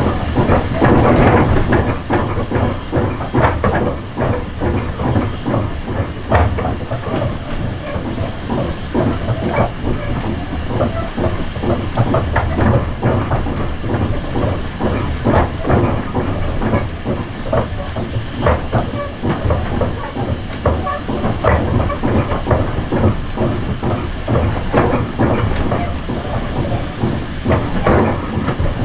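A heritage railway coach running along the track behind the steam locomotive 'Caledonia Works', heard from inside the coach. The wheels rumble steadily, with frequent irregular clicks and knocks from the rail joints and running gear.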